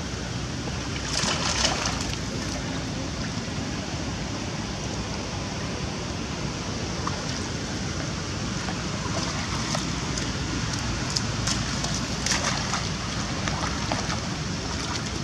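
Water splashing and sloshing as a macaque wades and swims through shallow floodwater, with louder bursts of splashing about a second in and again near the end, over a steady hiss of outdoor noise.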